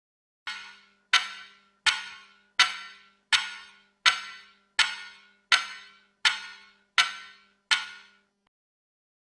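Eleven slow, evenly paced footsteps, hard heavy steps with an echoing tail after each, about one and a half a second, used as a horror sound effect. A faint low hum runs under the steps and stops with them.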